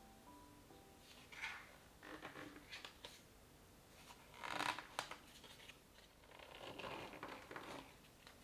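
Crinkling and rustling of something being handled at close range, in short scattered bouts. The loudest bout comes about halfway through and ends in a sharp click, with another longer rustle a couple of seconds later.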